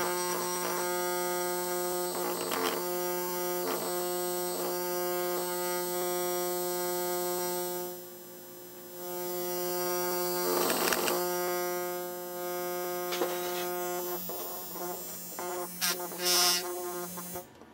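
DLP TV image-shift actuator, a small glass plate on a voice-coil drive fed from a signal generator through an audio amplifier, buzzing at a steady pitch of about 200 Hz with many overtones. The buzz dips briefly about halfway through, there are a few light clicks, and near the end it is handled by hand.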